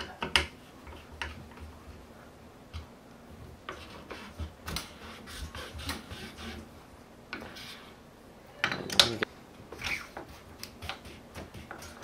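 Light clicks and rubbing of hand work on a bicycle handlebar: a hex key turning the Shimano XTR brake lever's clamp bolt and a grip being worked onto the bar. A louder clatter comes about nine seconds in.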